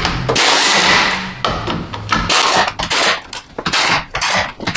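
Quarter-inch impact tool running bolts out: one longer run of about a second near the start, then a string of short bursts as it spins out the 10 mm fasteners of a truck's active grille shutter.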